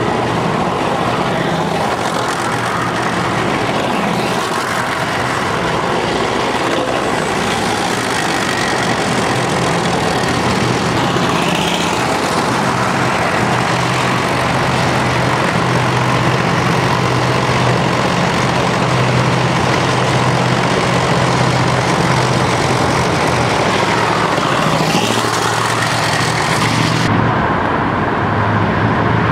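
Armoured military vehicles driving past in a column, their engines giving a steady heavy drone over road noise.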